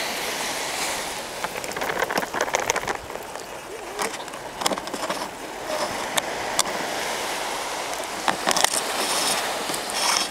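Handling noise on a small FPV quadcopter's onboard camera microphone: irregular clicks and scrapes as a propeller on a motor with sand inside is turned by hand. A steady wash of surf runs underneath.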